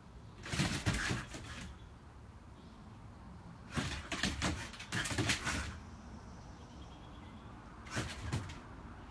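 Two dogs playing rough on porch deck boards: paws and claws scrabbling and thumping in three short bursts of knocks and scrapes.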